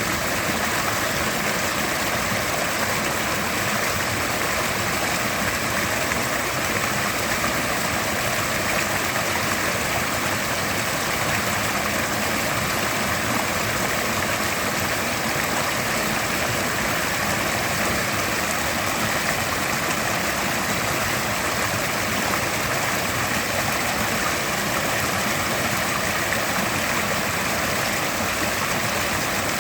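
Mountain river rushing steadily over rocks, a constant even roar of flowing water.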